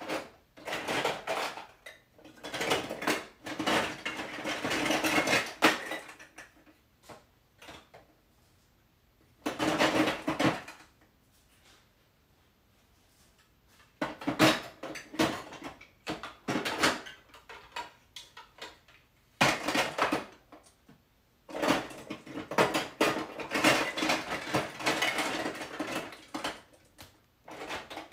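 Hard plastic marble-run pieces clattering as hands rummage through a plastic storage bin, in several bursts of a few seconds each with quiet pauses between.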